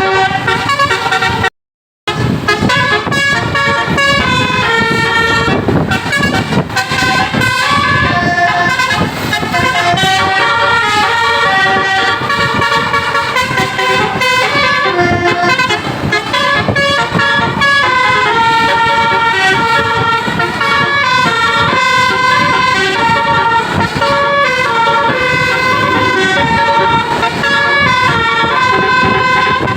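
Bus 'telolet basuri' musical air horns playing a melody of quick, stepped notes, several tones at once. The sound cuts out briefly about two seconds in.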